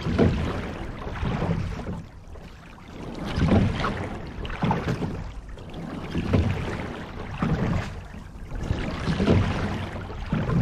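Water rushing and splashing along the bow of a moving rowing shell, swelling and easing in a regular rhythm with the strokes, about one surge every three seconds.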